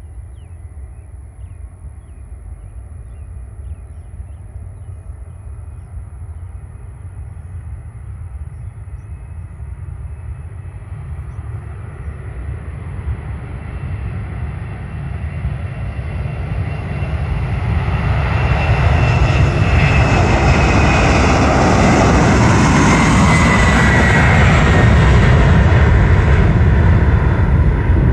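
Boeing 747-400's four turbofan engines at takeoff thrust during the takeoff roll and lift-off: a deep rumble that builds steadily and grows much louder about two-thirds of the way in, with a whine that falls in pitch as the jet passes.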